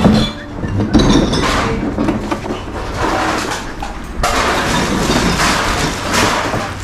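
Empty plastic bottles clattering inside a clear plastic sack, with the bag rustling as it is handled.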